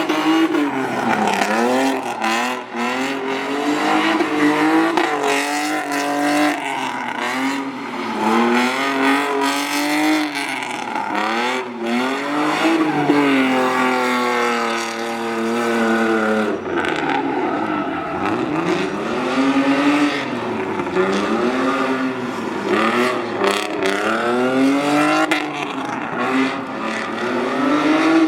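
BMW E30 drift car's engine revving hard and falling back again and again as it is thrown through a drift course, with tyres squealing. Near the middle, the revs climb and are held high for a few seconds.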